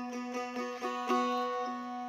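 Acoustic phin, the Isan Thai lute, plucked in a quick melody over a steady ringing drone note.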